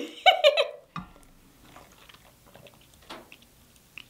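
A brief burst of voice, then faint scattered clicks and small mouth sounds of sipping water through the straw of a straw-lid water bottle.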